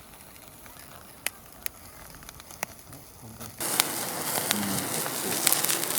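Meat grilling on a grill net over a wood and charcoal fire: a low crackle with a few sharp pops, then, about three and a half seconds in, a much louder sizzling hiss thick with crackles.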